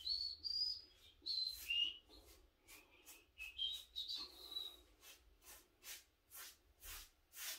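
Paintbrush stroking urethane onto a wooden door jamb: quick swishes, about two a second in the second half, with high, chirpy squeaks through the first half.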